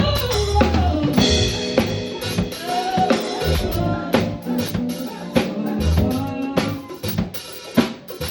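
Live band playing: a drum kit with kick, snare and rimshot strokes over a steady bass line, with a melody line on top.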